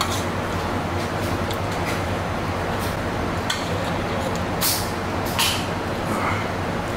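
Steady rushing noise of blowing air conditioning, with a low hum underneath. Two short scrapes come about two-thirds of the way in.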